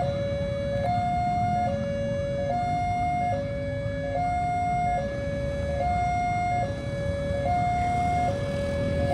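Railway level-crossing warning alarm sounding an electronic two-tone siren, switching between a higher and a lower note a little under once a second, the signal that the barrier is closing for an approaching train. A steady low rumble runs underneath.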